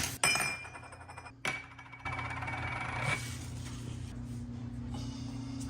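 Sharp clicks and clinks of hard plastic as the espresso machine's water tank and its red shipping plug are handled and the plug is pulled out, with a sharp click at the start and another about a second and a half in. A steady low hum follows.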